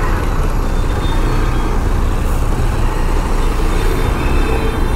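Steady road-traffic noise with the rumble of engines around a motorcycle in heavy traffic.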